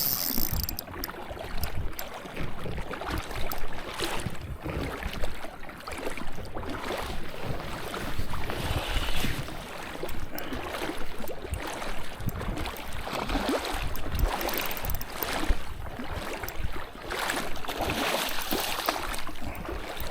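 Wind buffeting the microphone over rushing water, gusting unevenly.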